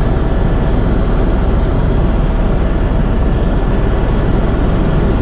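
Tour helicopter's rotor and turbine engine heard from inside the cabin: a loud, steady drone with a faint steady whine above it.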